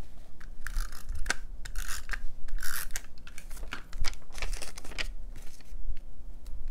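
Scissors cutting through a paper receipt in a series of short snips, with pauses between cuts.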